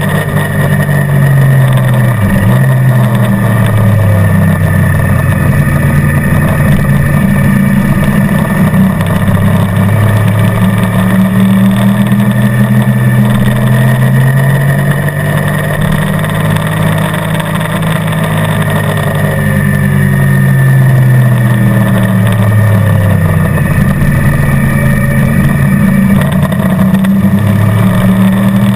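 Motorcycle engine running hard around a race track, its revs climbing and dropping again and again through the gears and corners, over steady wind and road noise.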